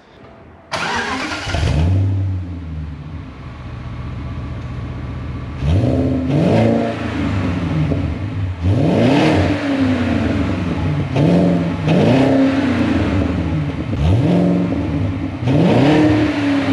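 BMW 545i's 4.4-litre V8 starting for the first time through a used aftermarket muffler and exhaust tip. It catches with a loud flare about a second in, settles to idle, then is revved about six times in short blips from about five seconds in.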